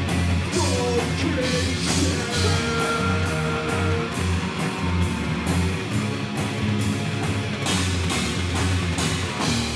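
Rock band playing live: distorted electric guitars and a drum kit, with cymbal hits a little over two a second and a guitar sliding down in pitch about half a second in.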